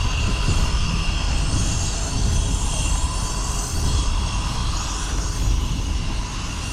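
Steady city street traffic noise heard from a moving bicycle, a continuous low rumble without clear separate events.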